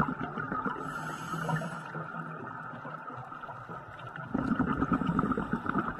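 Underwater ambient noise: a steady high hum under a muffled rushing, which grows louder about four seconds in.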